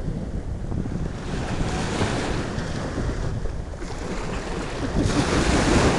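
Wind buffeting the microphone, a rushing rumble that swells and eases in gusts, loudest near the end.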